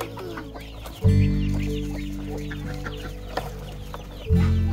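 Chickens clucking and chirping, over background music that strikes deep, sustained notes about a second in and again near the end.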